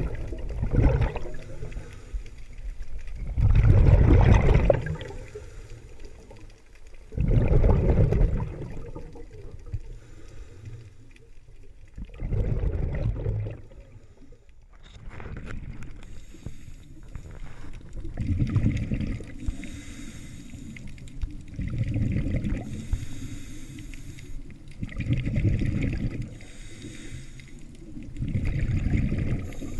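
Scuba diver breathing through a regulator, heard underwater through the camera housing: a burst of exhaled bubbles every few seconds, with quieter stretches between.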